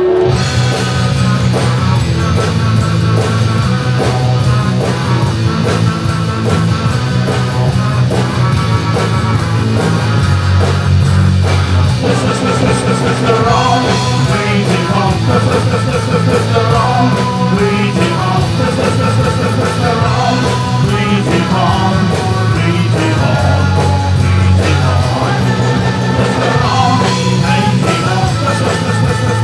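Live rock band playing: electric guitar, bass guitar and drums keep a steady driving beat. A male singer comes in about twelve seconds in.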